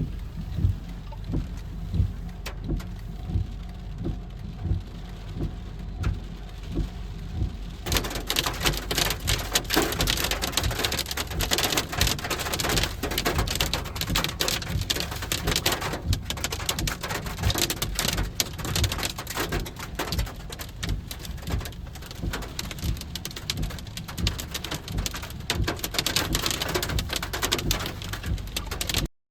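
Rain pattering on a surface over a low rumble with soft regular thuds. About eight seconds in, the rain hiss suddenly becomes much louder and denser.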